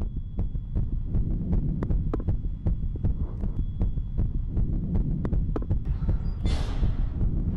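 Heartbeat sound effect: a fast, pounding pulse over a low throbbing hum, with a short hissing swell near the end.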